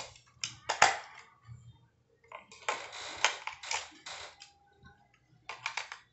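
AA batteries being pressed and slid into the plastic battery compartment of an RC car remote: a string of sharp clicks and knocks, with a longer run of scraping and rattling in the middle. More clicks come near the end as the compartment cover goes back on.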